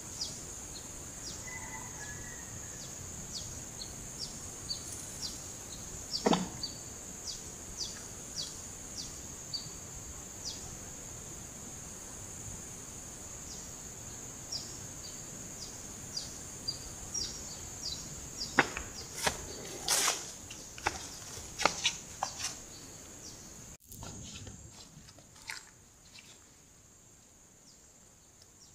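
Steady high-pitched insect drone from the riverside vegetation, with short chirps repeating about once or twice a second. About two-thirds through comes a cluster of louder clicks and knocks. The drone cuts off abruptly near the end, leaving it quieter.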